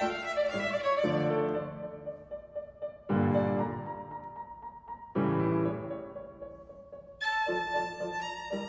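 Piano accompaniment played alone as the violin rests: a violin note fades out early on, then two strong piano chords about three and five seconds in each ring and die away. About seven seconds in the violin comes back in over the piano.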